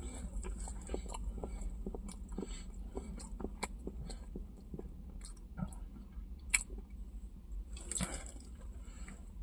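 A person chewing a mouthful of Burger King Cheester chicken burger close to the microphone: irregular wet mouth clicks and smacks, with a sharper click about two-thirds of the way through.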